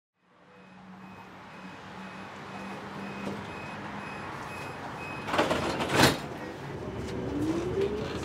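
Tram interior sound fading in: a steady rumble with a regular high beeping, the doors' closing warning, through the first half, a loud clatter a little past halfway, then the electric traction motor's whine rising in pitch as the tram pulls away.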